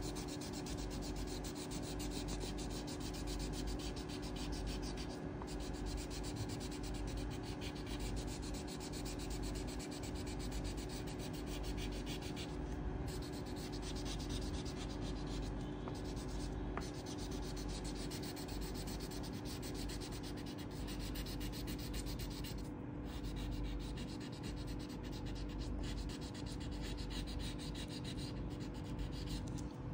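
Coloured pencil rubbing and scratching on paper in rapid back-and-forth shading strokes, steady throughout.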